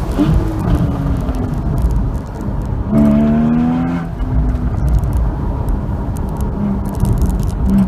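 Porsche Boxster 981 GTS flat-six heard onboard at track speed: the revs fall as it brakes hard from about 140 km/h, then the engine pulls again with rising pitch from about three seconds in through the corner. A constant low rumble of wind and road noise runs underneath.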